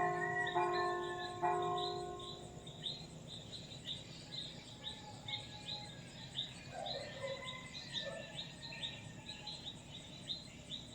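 A church bell struck three times in quick succession near the start, each strike ringing and fading within a couple of seconds. Rapid, high-pitched bird chirps repeat over it throughout.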